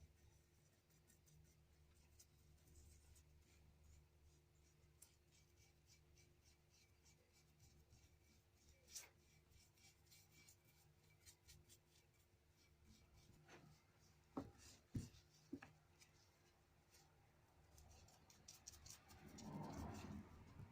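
Near silence with faint handling noises: scattered small ticks, a few light knocks about two-thirds of the way in, and a brief rubbing sound near the end.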